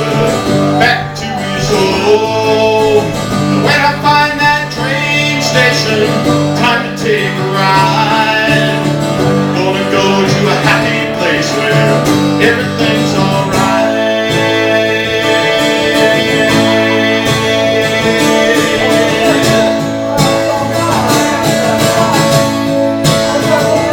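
Live country-style band music led by guitar, with no words sung, played as a break after the chorus; the melody bends in pitch through the first half, then long held notes carry on from about the middle.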